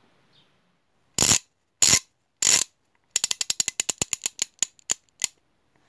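Logo sound effect: three short, sharp noisy hits about half a second apart, then a fast run of mechanical clicks that slows down and stops, with one last click after a short pause.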